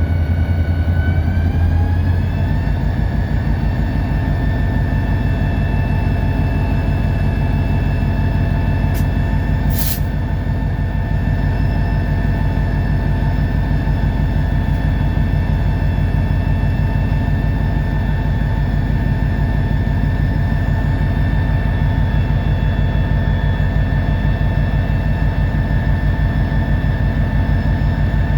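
EMD SD40-2 locomotive's 16-cylinder two-stroke turbocharged diesel, heard from inside the cab, ramping up over the first couple of seconds and then running steadily under load while moving a cut of cars. A short hiss about ten seconds in.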